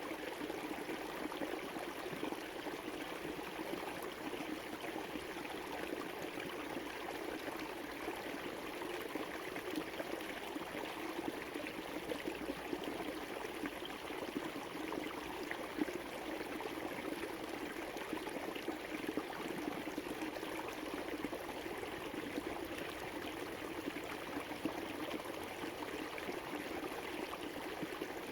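River water flowing, a steady, even rushing sound.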